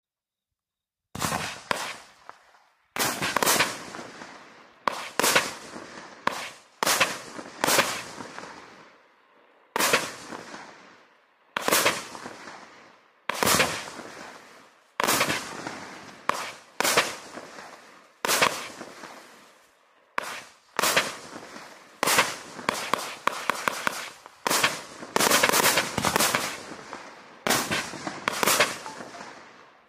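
A 36-shot, 30 mm firework cake (Vivid Pyrotechnics Havoc) firing, starting about a second in. Its shots go off one after another, roughly one every one to two seconds, each a sharp bang trailing off into a fading crackle of strobe stars.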